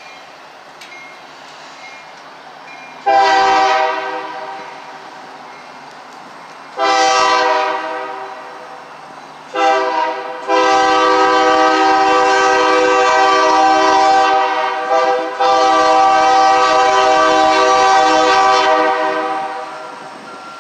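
Union Pacific freight locomotive's air horn sounding a series of blasts: two blasts a few seconds apart, a short one, then a long drawn-out blast of about nine seconds with a brief break in it, the long-long-short-long pattern of a grade-crossing warning.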